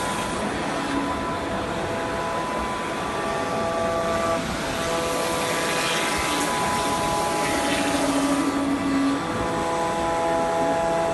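An SG2540T-3S CNC router's spindle running and milling a wooden foundry pattern: a steady whine of several held tones over a noisy cutting hiss, with a lower tone that comes and goes, loudest for a second or so near the end.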